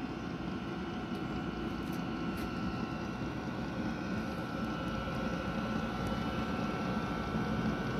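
The 8 kW heater built into the aluminium heat box running, its fan giving a steady hum with a constant thin whine.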